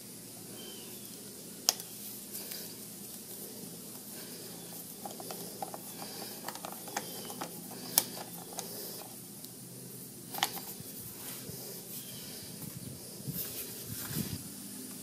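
Flat-head screwdriver working the screw out of a Briggs and Stratton Quantum engine's plastic air cleaner cover: scattered light clicks and scrapes of metal on the screw and plastic, with three sharper clicks, over a faint steady hiss. Near the end, small rattles as the plastic cover is worked loose.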